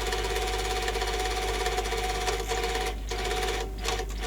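Yamaha CDC-755 CD player's disc and laser mechanism running with a steady mechanical buzzing whir, broken by a few short gaps in the second half. The player is struggling to read the disc, a fault that seems to be something to do with its laser.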